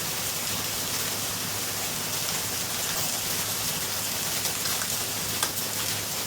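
Sliced red bell peppers sizzling in a hot pan: a steady crackling hiss, with one sharper pop about five seconds in.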